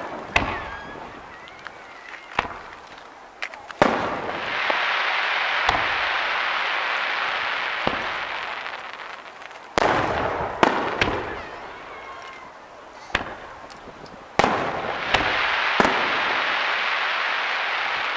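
Fireworks display: aerial shells bursting with about a dozen sharp bangs, some coming in quick pairs, and three long stretches of dense crackling hiss between them.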